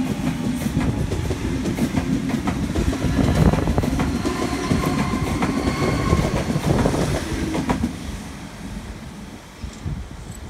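A Sydney Trains Waratah (A-set) electric train pulling away from the platform. A heavy low rumble is broken by clicking wheels over rail joints, with a faint whine in the middle. It fades as the train draws off near the end.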